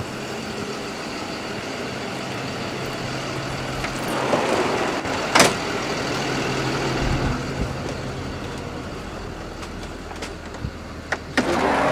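Snap-on tool truck idling with a steady low hum. A sharp click about five seconds in as the side door latch opens, and a few knocks and rattles near the end as someone steps up into the truck.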